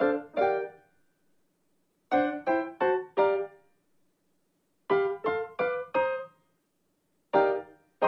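Background music: a solo piano playing short phrases of about four notes each, every couple of seconds, with silence between the phrases.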